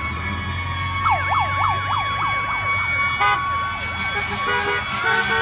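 An emergency-vehicle siren in fast yelp mode, its pitch sweeping up and down about four times a second, starting about a second in over a steady tone and fading after a couple of seconds. Short car-horn honks come about three seconds in and again near the end.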